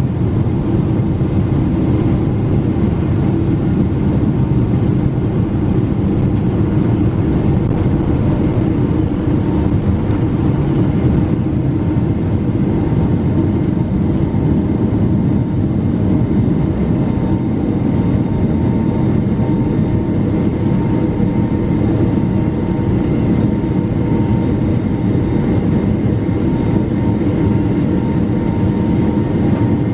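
Boeing 777-300's turbofan engines at takeoff thrust, heard from inside the cabin over the wing: a loud, steady jet roar with steady fan tones through the takeoff roll and climb-out. About halfway through, a faint high whine glides down and the upper hiss drops away.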